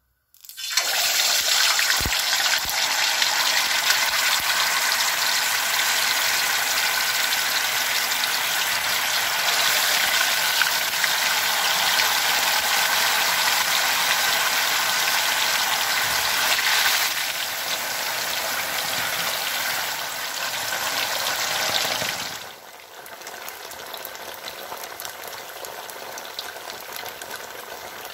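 Slabs of bean curd (tofu) deep-frying in hot oil in a wok: a loud, steady sizzle that starts suddenly as the tofu goes into the oil. About 22 seconds in it drops to a quieter sizzle.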